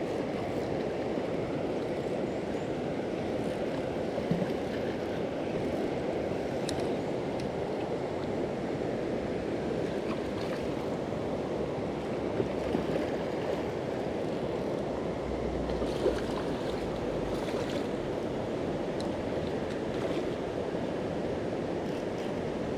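Steady rushing of river water flowing over rocks, with a few brief clicks here and there.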